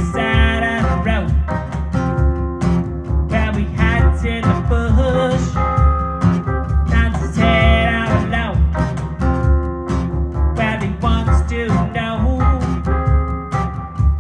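Guitar-based music with a bass line and a steady beat.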